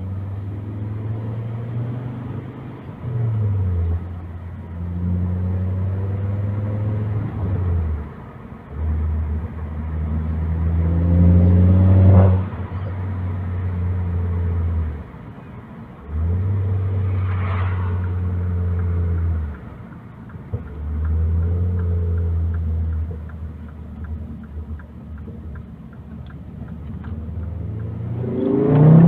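Ford Focus ST (XR5 Turbo) turbocharged 2.5-litre five-cylinder engine heard from inside the cabin while driving, accelerating through the gears with short dips in sound at each gear change. The loudest pull is a rising surge about twelve seconds in, and there is a brief whoosh a few seconds after it.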